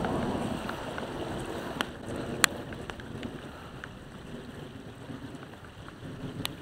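Rain falling steadily on a pond, with wind rumbling on the microphone. A few sharp ticks stand out, the loudest about two and a half seconds in.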